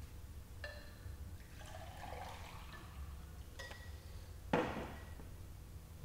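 Water poured from a glass pitcher into a drinking glass, in a few short spells. About four and a half seconds in comes one louder, sudden sound that dies away quickly.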